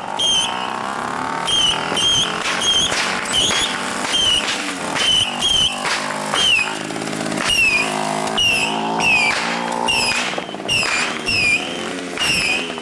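Fireworks strapped to a moving moped crackling and popping nonstop, with short whistles that bend down in pitch about once or twice a second. The moped's small engine runs underneath, most plainly in the middle.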